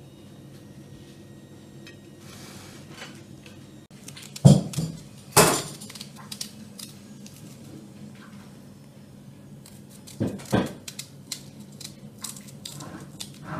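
Kitchen knife and plate knocking and clinking while vegetables are cut by hand: two loud knocks about four and a half and five and a half seconds in, then a run of lighter knocks from about ten seconds on, over a faint steady low hum.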